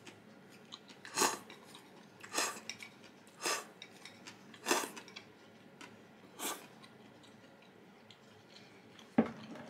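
Eating utensils knocking and scraping against a bowl or plate: five short clacks about a second apart, then a sharper knock near the end.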